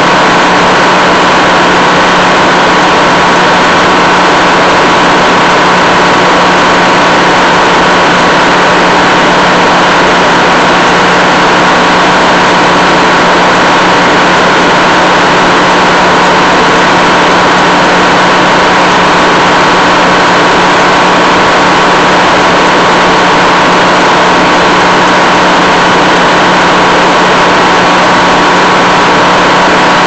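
Old Meadows circular sawmill running, its large circular blade spinning on a belt drive: a loud, even drone with a steady hum that does not change.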